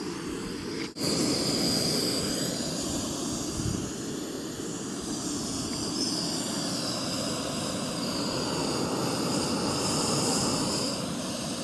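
Gas canister backpacking stove burning steadily with a hissing roar under a small pot of water coming to a full boil. The roar starts about a second in, after a short quieter stretch.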